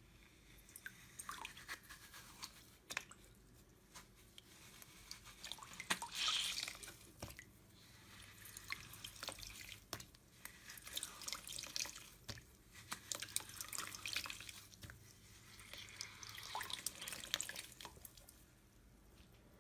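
Quiet, irregular wet sounds of dripping and splashing liquid, with scattered small clicks and a louder splash about six seconds in.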